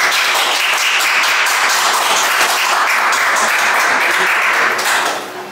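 A class of students applauding, many hands clapping together steadily, then dying away near the end.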